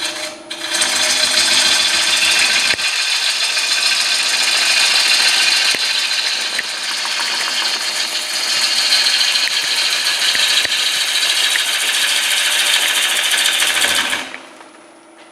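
A turning tool cutting the outside of a spinning, soaking-wet hard maple bowl blank on a wood lathe, throwing shavings with a loud, steady hiss. The cut stops abruptly about a second before the end, leaving the quiet hum of the lathe still running.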